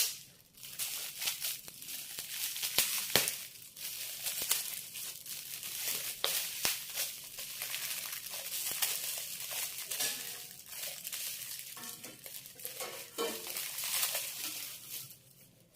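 Gift wrapping being crumpled and torn off a present as it is unwrapped: a continuous crinkling rustle with many sharp crackles, fading out near the end.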